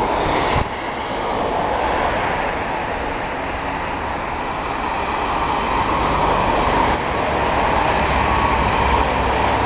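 Steady rushing noise of street traffic and wind on the microphone while riding among cyclists, with a low rumble building over the last few seconds.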